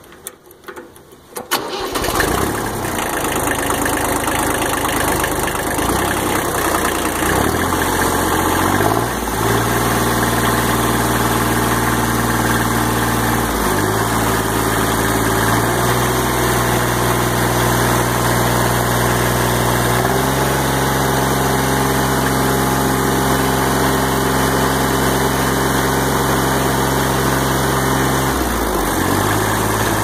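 Kubota L225 tractor's two-cylinder diesel engine cranking briefly and catching about two seconds in, then running. The engine speed is raised in several steps, held up, and drops back near the end.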